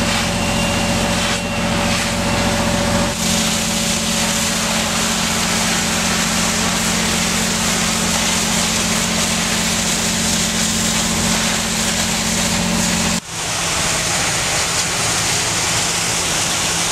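Fire engine running steadily as it pumps, under the hiss and splash of hose streams of water. The engine tone changes abruptly twice, a few seconds in and again about thirteen seconds in.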